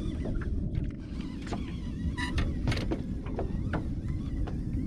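Steady low rumble aboard a small fishing boat, with scattered light clicks and knocks.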